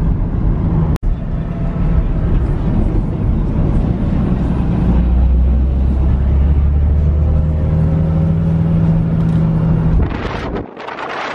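Car engine running at steady cruising revs, a low drone whose pitch shifts slightly, broken by a brief dropout about a second in. Near the end it cuts abruptly to wind rushing over the microphone.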